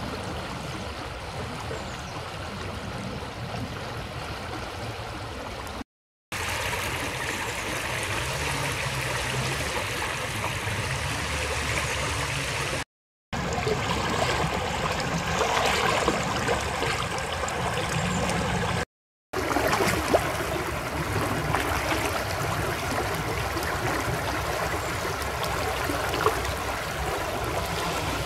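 Stream water flowing steadily over a low step and riffle in its bed. It is heard as four stretches, each cut off abruptly by a brief silence.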